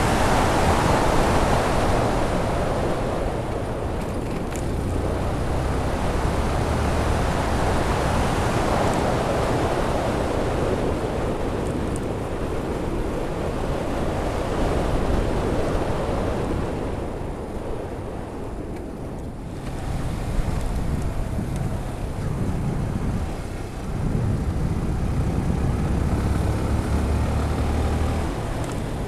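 Wind buffeting the microphone of a helmet-mounted Freedconn R1 camera behind a fur windscreen while riding, rising and falling in strength, over the low steady hum of the Yamaha FZ16's single-cylinder engine. The fur muffler is not keeping the wind noise down at this riding speed.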